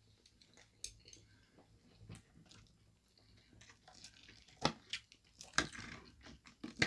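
Faint eating sounds: scattered sharp clicks of metal chopsticks against plates and bowls, with chewing. Near the end, softer rustling and tearing as a piece of steamed grilled fish is pulled apart by hand.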